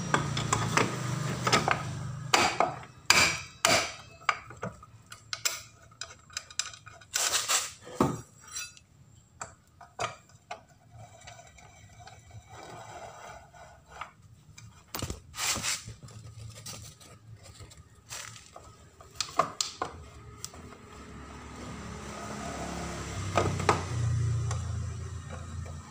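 Metal tools and scooter gear-case parts clinking, clanking and knocking in irregular sharp strikes, crowded together in the first ten seconds or so and scattered after. A low rumble swells near the end.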